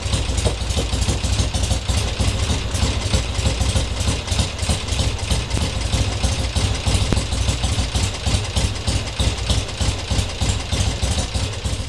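1968 Triumph TR6R's 650 cc parallel-twin engine idling steadily with an even, rapid exhaust beat.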